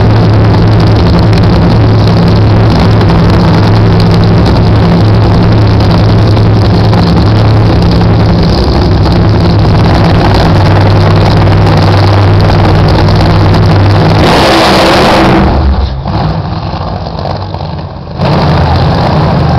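Two nitro Funny Cars' supercharged nitromethane V8s idle with a steady, heavy drone at the starting line, then open up at full throttle on the launch about fourteen seconds in, loud enough to overload the recording. The sound drops as the cars go down the track, and a loud sound returns near the end.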